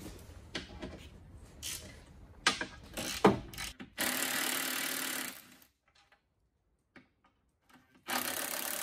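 Cordless ratchet running in short bursts, a steady buzz for about a second and a half starting about four seconds in and again near the end, undoing the bolts that hold the steering rack to the subframe. Before the first run there are light clicks and knocks of the socket being fitted to the bolt.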